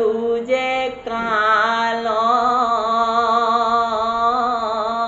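A man's voice chanting a Bhagavat verse in slow, melodic recitation. After a short sung phrase and a brief break about a second in, he holds one long, slightly wavering note.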